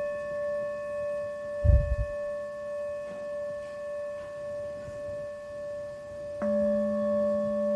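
A struck Tibetan singing bowl ringing with several steady overtones that waver slowly in loudness, with a short low thump about two seconds in. About six and a half seconds in a second strike adds a stronger low tone.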